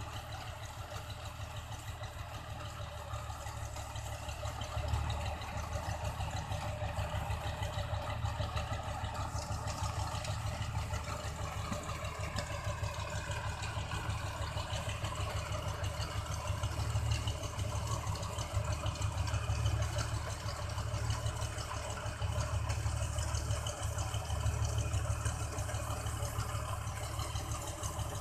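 New Holland combine harvester's diesel engine running steadily while its unloading auger discharges rice grain into a truck, a continuous low drone that swells a little now and then.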